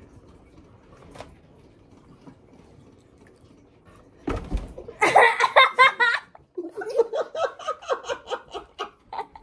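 A thump of something falling about four seconds in, then loud laughter: a high wavering burst followed by rhythmic ha-ha-ha pulses, about four or five a second.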